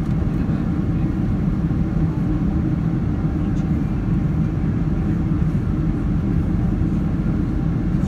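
Steady low drone inside the cabin of a Boeing 767 airliner in flight: engine and airflow noise heard from a window seat, even throughout and strongest in the bass.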